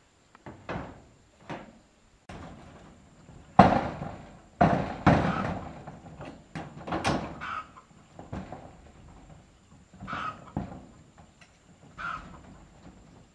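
Irregular knocks, bumps and scrapes of objects being handled, the loudest a heavy thud about three and a half seconds in, followed by a cluster of further knocks.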